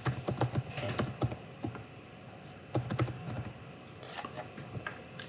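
Typing on a computer keyboard: short runs of key clicks in a few bursts, with pauses between them.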